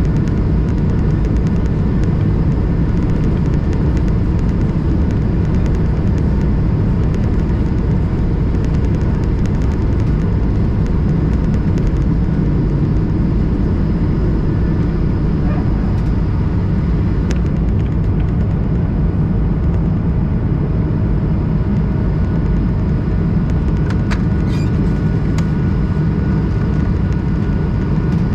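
Cabin noise of an Airbus A220 on its takeoff run and initial climb: the Pratt & Whitney PW1500G geared turbofans at takeoff thrust. A loud, steady rumble with a faint steady whine over it.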